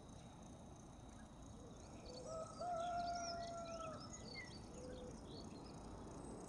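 A rooster crowing once in the distance: a short note, then one long held note lasting about a second and a half, with a shorter call just after. Small birds chirp high over a faint, steady outdoor background.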